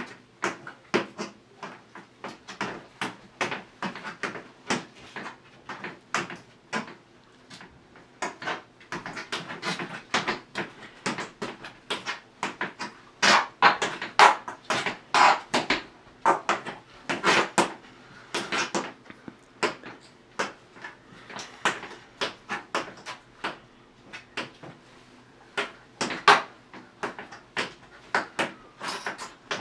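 Tap shoes striking a ceramic tile floor: a beginner tap dancing, with many sharp taps in an uneven, irregular rhythm, loudest in quick runs around the middle.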